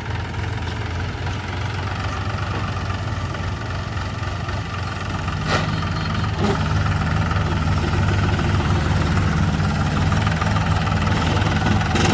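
Heavy diesel engine running steadily, getting a little louder about halfway through, with one short sharp knock at about the same point.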